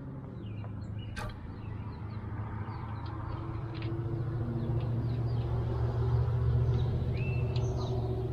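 Low steady motor-like hum that grows louder through the middle and eases near the end, with faint high chirps and a light click about a second in.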